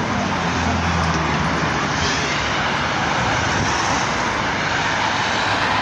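Steady rushing noise of a tram and street traffic, with a low hum that fades out about two seconds in.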